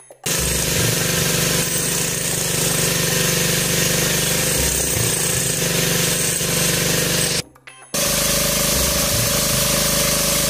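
Electric jackhammer chiselling into a concrete walkway to expose a water line, running continuously with a steady rattle. It stops for about half a second about seven seconds in, then starts again.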